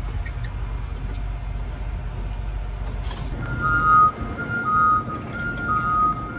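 Low rumble of the electric garbage truck at a near standstill, then, about three and a half seconds in, an electronic alert chiming in two alternating pitches, high and low, each piece about half a second long.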